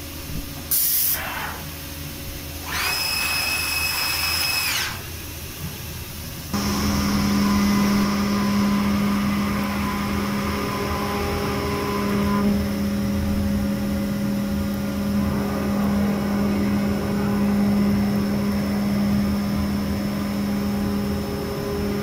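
SCM Record 120S CNC machining centre's 7.5 kW electric spindle running a router bit around the edge of a round panel. A steady machining hum with a noisy cutting haze starts about six and a half seconds in and holds. Before it come a couple of short hissing bursts and a whine that rises, holds for about two seconds and falls away.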